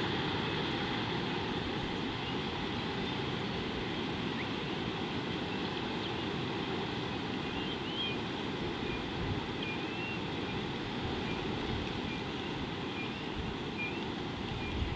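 Steady outdoor ambience of wind rumble and hiss on the microphone, with faint short bird chirps scattered through the second half.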